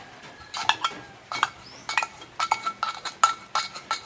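Metal fork clinking and scraping against an opened tin can, about a dozen sharp taps, several with a short metallic ring, as food is worked out of the can.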